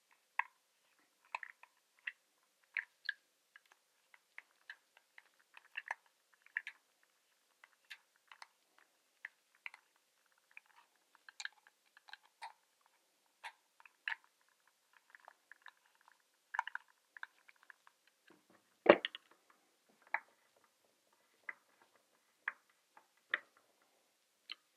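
Phillips screwdriver snugging down small bolts in a downrigger's swivel base plate: faint, irregular clicks and ticks, a few a second, with a louder knock about nineteen seconds in.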